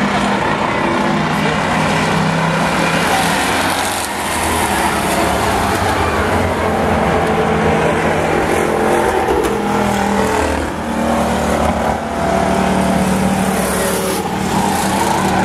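Engines of several demolition-race cars running around a paved oval track, a loud, continuous engine drone with pitches that shift up and down as the cars accelerate and pass.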